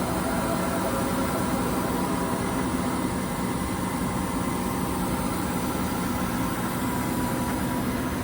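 Romi M-27 CNC lathe running under power with a steady machine hum and several held tones.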